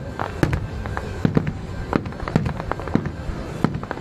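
Fireworks display, aerial shells bursting in quick succession: sharp bangs at uneven intervals, about three or four a second.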